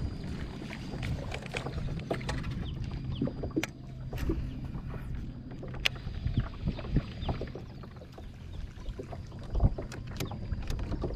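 Scattered knocks and clicks of gear being handled aboard a fishing kayak, over a low steady rumble.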